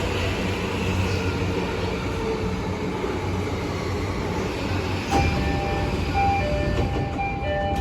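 Door chime of a JR East E233 series 3000 commuter train: a click about five seconds in, then a chime of short notes at several pitches repeating over the train's steady low hum.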